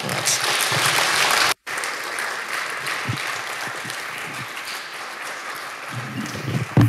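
Audience applauding, loudest at the start and then steady and easing off, with a brief cut-out about a second and a half in. A couple of low thumps come near the end.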